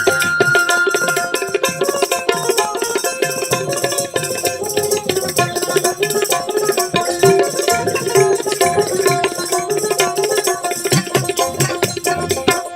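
Instrumental interlude of a Bengali Baul folk song: a hand drum and small percussion keep a fast, busy beat under a sustained melodic line.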